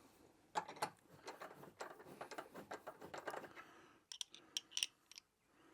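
Metal parts and hand tools clicking and knocking as a part is fitted to a lawn mower: a run of irregular clicks and knocks, then a few sharp metallic ticks about four seconds in.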